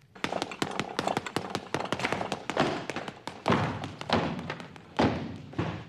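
Fists hitting a leather punching ball in a fast run of sharp knocks, then, about two and a half seconds in, several heavier thuds from a run-up and vault at a gym pommel horse onto mats.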